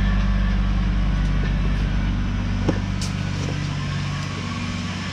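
Steady low mechanical hum, with a couple of light clicks about three seconds in.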